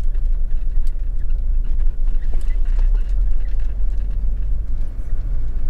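Steady low rumble of a camper van's engine and tyres on the road, heard from inside the cab while driving.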